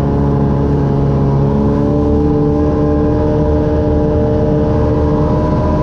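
Snowmobile engine running steadily under the rider, its pitch rising slowly as it picks up speed.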